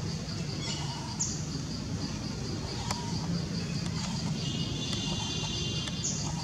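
Outdoor forest ambience: an insect calling in a steady pulse, about three times a second, with two short high falling bird chirps and a low steady hum underneath.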